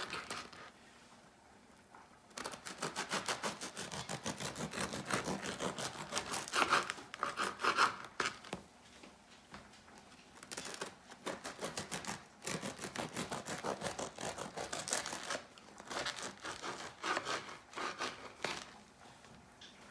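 Serrated bread knife sawing back and forth through a warm, freshly baked bread-machine loaf, in quick even strokes. The strokes come in two runs, with a short pause about halfway through.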